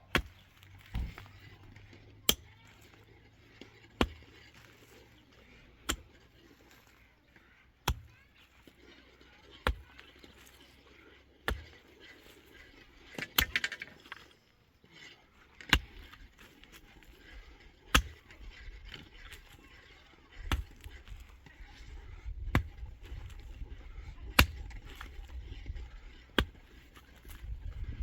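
Repeated heavy strikes of a hand tool, about one every two seconds, with a quick flurry of knocks about halfway through. A low rumbling noise rises in the last few seconds.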